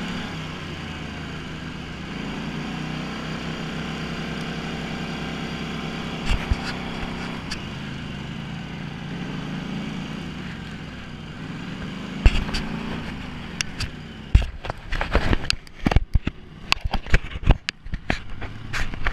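ATV engine running on a bumpy dirt trail, its note rising and falling with the throttle, with a couple of sharp knocks from bumps. In the last few seconds a rapid series of knocks and clatter takes over as the handlebar-mounted camera is handled and turned toward the rider.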